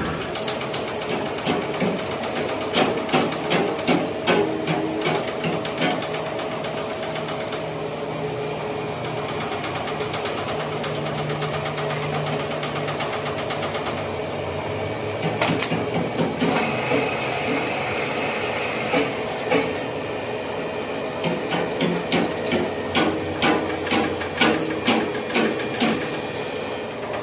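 Metalworking machinery running with a steady hum, overlaid by many irregular sharp metallic knocks and clicks that come in clusters, heaviest near the start and through the second half.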